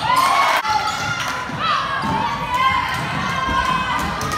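Basketball dribbled and bouncing on a hardwood gym floor during play, with thumps of feet, and players and spectators calling out in a large echoing gym.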